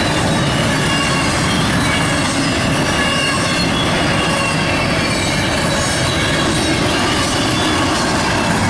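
Double-stack intermodal freight cars rolling past: a loud, steady rumble of steel wheels on the rails, with thin, high wheel squeals above it.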